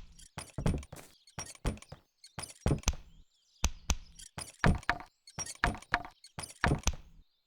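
A leg brace clicking and knocking out a rhythmic beat, a short cluster of clicks and knocks about once a second.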